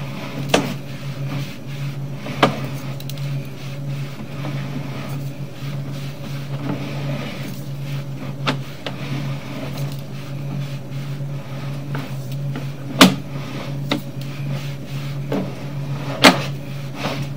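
Sewer inspection camera's push cable being pulled back out of the line: a steady low hum with a handful of sharp clicks and knocks, the loudest about 13 and 16 seconds in.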